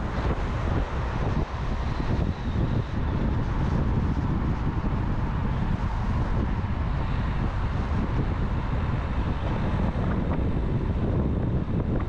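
Wind buffeting the microphone over steady road and engine noise from a moving vehicle.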